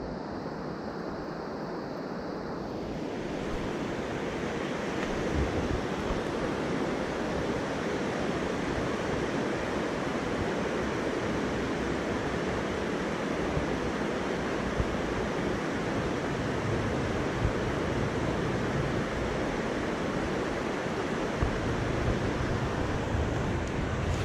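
Steady rushing of a mountain stream's flowing water, with an unsteady low rumble of wind on the microphone beneath it.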